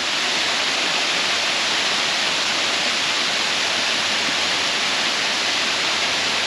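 Steady rush of fast-flowing water, a mountain stream or small waterfall, loud and unchanging.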